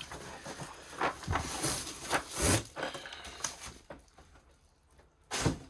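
Plastic storage containers and their packaging being handled, with irregular clicks, rustling and knocks, ending in one louder knock about five seconds in.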